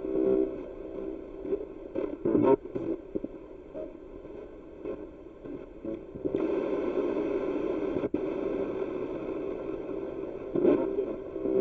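Spirit box sweeping through radio stations: choppy radio static broken by short blips of broadcast sound. About six seconds in it turns to a steadier hiss, and it cuts out for a moment about two seconds later.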